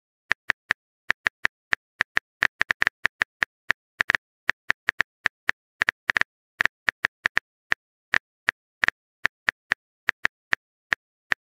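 Smartphone keyboard tap clicks: short, sharp clicks at an irregular typing pace of about three to four a second, as a message is typed.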